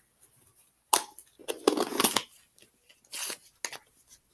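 A plastic slime container being handled and put away: a sharp click about a second in, then scraping and rustling.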